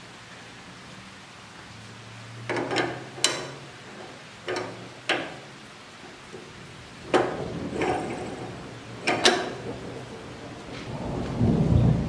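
Sharp metal clicks and knocks, about eight of them starting a couple of seconds in, as a steering wheel and its threaded wing-nut hub are handled and fitted onto a steering column. A low rumble builds near the end.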